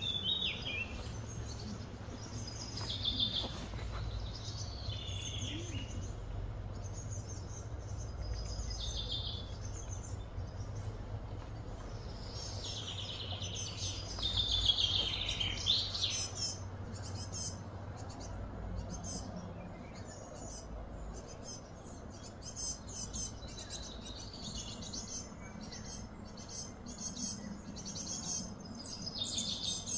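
Birds chirping and calling, busiest about halfway through with a cluster of quick falling calls, over a steady low hum.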